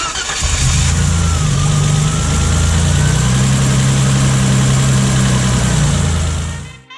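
BMW E30 engine idling steadily, heard up close at the rebuilt ZF vane-type power steering pump and its drive belt, with a faint whine that wavers in pitch above the engine note. It cuts off shortly before the end.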